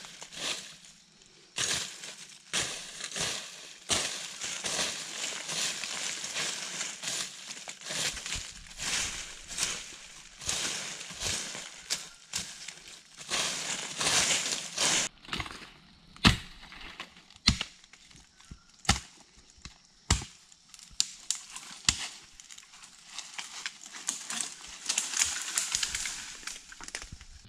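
Dry leaf litter crunching and rustling as a person works by hand and moves about in it, with a handful of sharp cracks about a second apart in the middle, like sticks snapping or being chopped.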